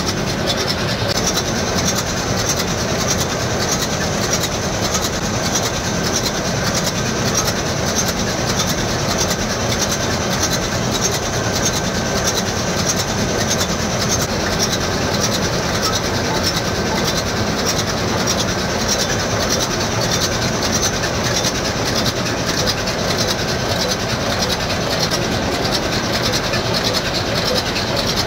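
Loud, steady engine-room din of a ship's MAN B&W two-stroke slow-speed main engine running, a dense mechanical noise with fast, even pulsing that holds without a break. The engine is running, as it must be while indicator cards are taken.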